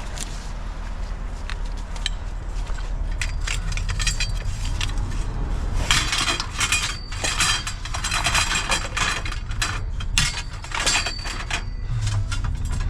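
Small pieces of scrap metal clattering and clinking against each other as they are handled and loaded, with many quick knocks that grow busiest in the middle and a few brief metallic rings, over a low steady hum.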